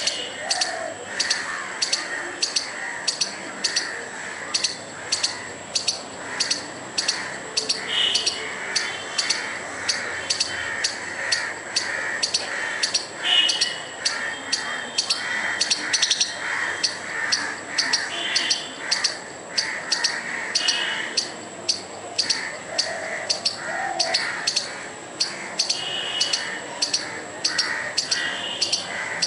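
Squirrel giving its alarm call: a sharp chirp repeated steadily, about twice a second, directed at a dog.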